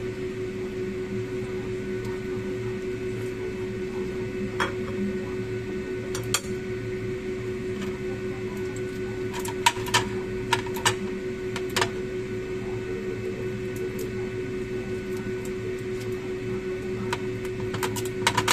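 Kitchen scissors cutting through roast chicken on a plate: scattered sharp snips and clicks, bunched around the middle and again near the end, over a steady background hum.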